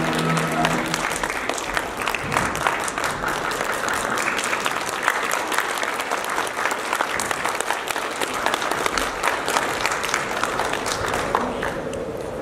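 Audience applauding, with the last held note of the music dying away about a second in; the clapping thins out near the end.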